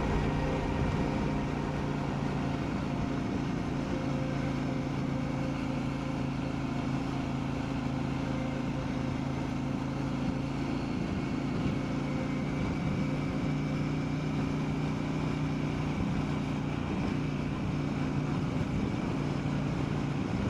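KTM 790 Adventure's parallel-twin engine running at a steady pitch while riding, with a haze of wind and tyre noise beneath it.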